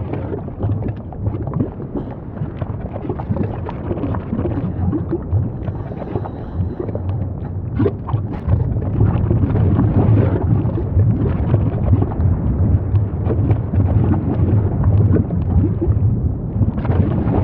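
Volcanic eruption sound effect: a deep, continuous rumble with dense crackling, getting a little louder about halfway through.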